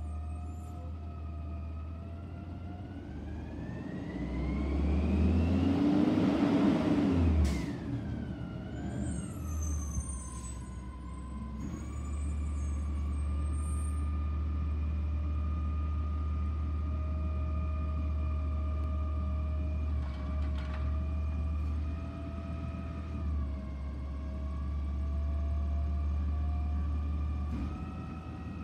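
Autocar Xpeditor garbage truck's diesel engine pulling up, rising in pitch to a loud peak, then a short hiss, probably from the air brakes, and a falling pitch as it slows. It then runs steadily with a high whine over the low engine hum while the McNeilus Autoreach arm works the curbside cart.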